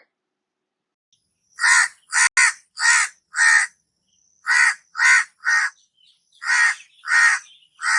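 A crow cawing: about eleven short, harsh caws in three runs, five then three then three, starting about a second and a half in.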